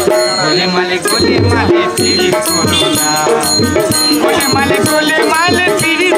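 Baul folk song: voices singing a wavering melody over a plucked dotara, with steady strokes on a barrel drum and jingling hand percussion keeping the rhythm.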